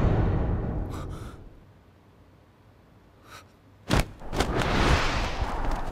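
Drama sound effects: a low rumble fades away into a short hush, then a sharp hit about four seconds in is followed by a breathy whoosh that swells and dies down.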